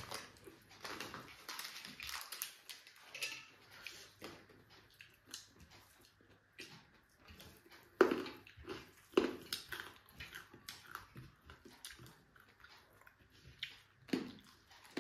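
Close-miked eating sounds: a person chewing and smacking their lips over a mouthful of rice and fried pork, with irregular small wet clicks throughout and a few louder smacks about halfway through and near the end.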